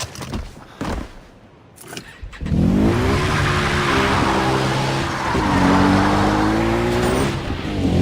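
Racing-car engine in video game footage: a few short knocks, then the engine note climbs sharply about two and a half seconds in and holds at high revs, dipping and recovering twice, over tyre and road noise.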